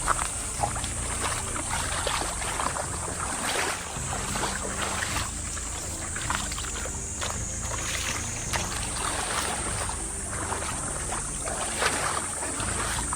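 Water splashing and lapping in irregular short bursts over a steady low rumble of wind and surf.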